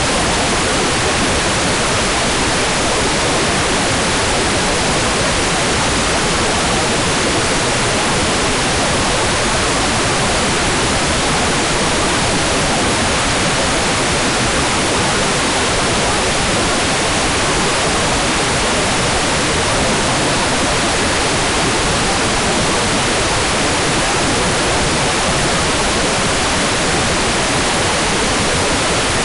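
Hair dryer running steadily: a continuous, even rushing noise of blown air, unchanging in level.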